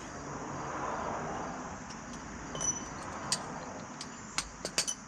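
Metal hand tools handled and set down: a scraping rustle, then several sharp metallic clinks, some ringing briefly, in the second half.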